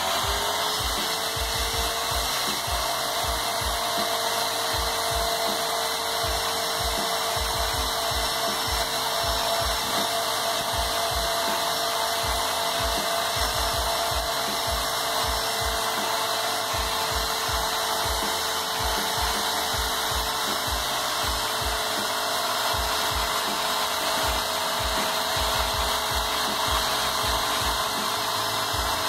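Graco Magnum LTS 15 airless paint sprayer's electric motor and piston pump running steadily in prime mode, with a steady whine over low knocking pump strokes. It is flushing water through its lines to clean out paint.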